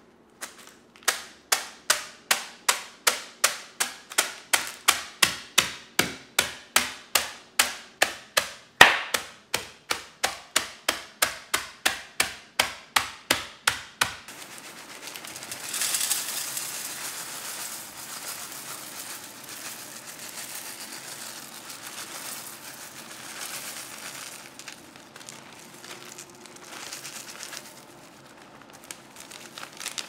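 Wooden rolling pin pounding a zip-top plastic bag of corn flakes on the counter, about three strikes a second with one harder strike about nine seconds in, crushing the flakes. About fourteen seconds in the strikes stop, and crushed corn flakes pour and rustle into a metal sheet pan.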